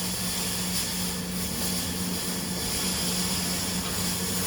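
Steady machine hum with a constant rushing hiss, like fans or powered equipment running.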